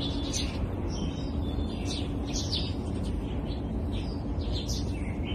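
Birds chirping, many short high calls one after another, over a steady low background rumble.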